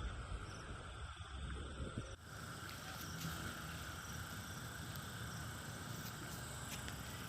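Steady outdoor insect chorus, a continuous shrill drone, with low wind rumble on the microphone. The sound changes abruptly a little over two seconds in, then goes on steadily.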